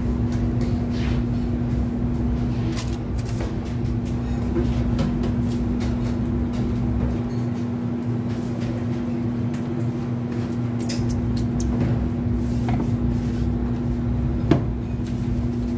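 Steady hum of kitchen machinery, a constant drone with a low rumble underneath, and one sharp knock near the end.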